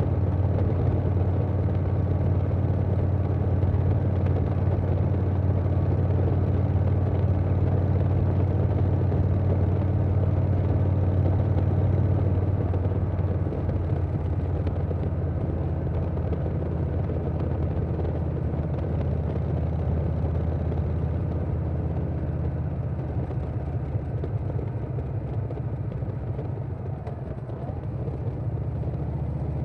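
Harley-Davidson Milwaukee-Eight V-twin engine of a 2020 Softail Standard running through Vance & Hines Big Radius 2-2 exhaust pipes, with wind noise. It runs steadily, then eases off and gets quieter about halfway through.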